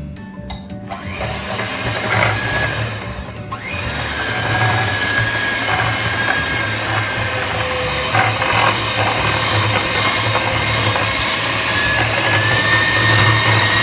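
Handheld electric mixer running steadily with a hum and a thin whine, its beaters creaming margarine, butter and sugar in a glass bowl. It starts about a second in.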